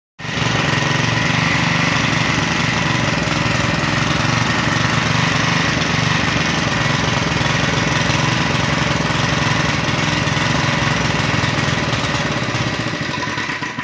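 MK12 water-pump engine running steadily. The engine starts but will not come up to speed however far the governor is moved, a fault the owner puts down to the butterfly or a clogged vapour part.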